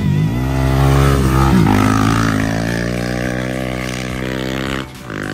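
Rally motorcycle engine running hard at high revs, holding a fairly steady pitch, breaking off abruptly near the end.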